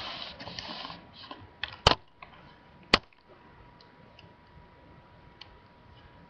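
Rustling and bumping as a webcam is grabbed and moved, then two sharp knocks a little over a second apart, the loudest sounds here, followed by a few faint ticks over a faint steady tone.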